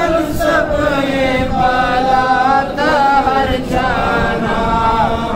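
A man's unaccompanied voice chanting an Islamic devotional recitation, with long held notes that bend and glide in ornaments.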